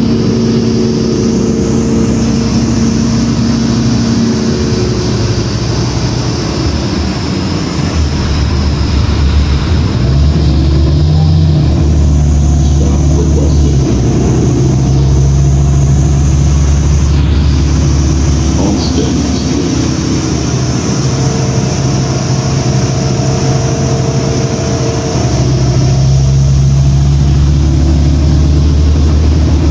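Cummins ISL diesel engine of a 2006 New Flyer D40LF transit bus running, heard from inside the bus. The engine note gets deeper and louder about eight to twelve seconds in as it pulls harder, eases off, and picks up again a little before the end.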